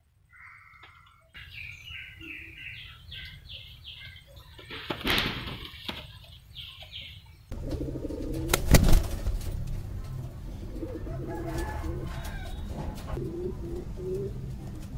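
Fancy pigeons in a cage: a fast run of high chirps in the first half, bursts of wing flapping about five and nine seconds in, and low cooing near the end. From about halfway there is a steady low hum under the birds.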